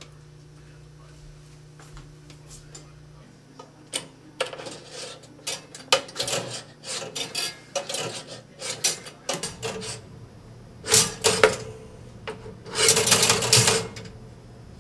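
A pop-up toaster being handled: a quiet start, then from about four seconds in a busy run of clicks, scrapes and rubbing, with a longer scraping burst near the end.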